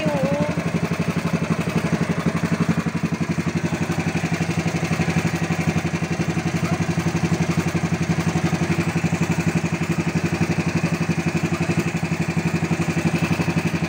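Engine of a motorized outrigger boat running steadily under way, with a fast, even pulse that does not change.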